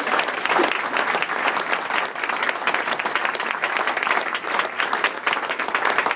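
Many people applauding together: dense, even hand clapping.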